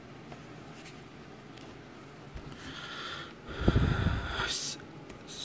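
A person's loud breath close to the microphone, building up past the middle and lasting about a second, with a brief hiss near the end.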